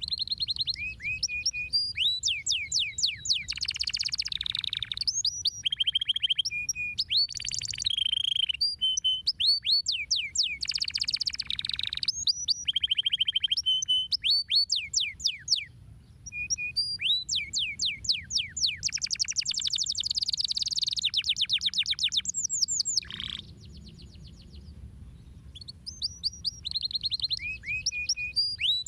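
Canary singing: a long song of rapid trills, each made of quickly repeated, downward-sweeping notes, in phrases of a few seconds separated by short breaks, with a longer lull about three-quarters of the way through.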